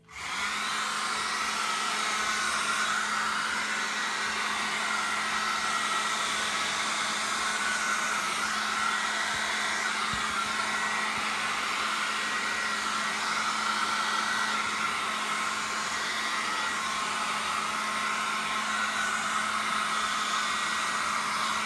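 Handheld hairdryer running steadily at one speed. It switches on at the start and cuts off suddenly at the end, about twenty seconds later.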